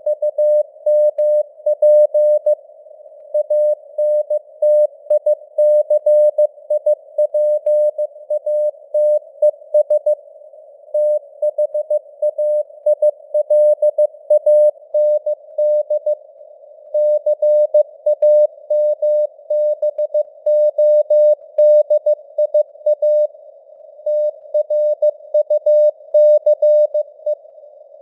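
Morse code (CW) at 15 words per minute: a single mid-pitched beep tone keyed in dots and dashes, with short gaps between letters and words. It sits in a narrow band of simulated radio hiss.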